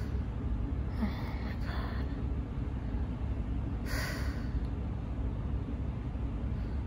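Steady low rumble of background noise, with three short breaths about one, two and four seconds in.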